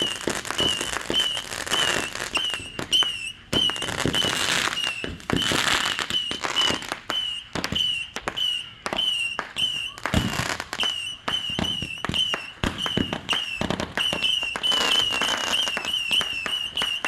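Aerial fireworks going off in rapid succession: a steady string of bangs and crackles, some louder than others. Throughout there is a high, short chirp repeating about twice a second.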